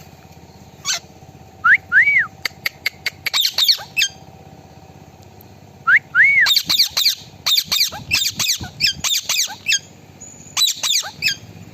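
Indian ringneck parrot calling: a few arched whistled notes, then quick runs of sharp, high screeching calls, in two bouts about four seconds apart, over a steady low hum.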